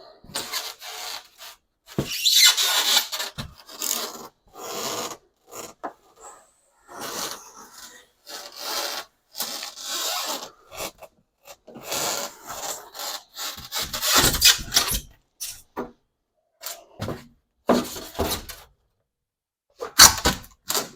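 A razor-blade knife cutting through foam board in a series of short, irregular rasping strokes, with brief pauses between them.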